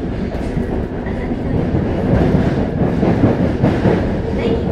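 Interior running noise of a Yokohama Municipal Subway 3000A-series train with Mitsubishi GTO-VVVF control, heard inside the car in a tunnel. The wheels rumble and click rhythmically over the rails, getting louder about two seconds in, and a steady motor whine comes in near the end.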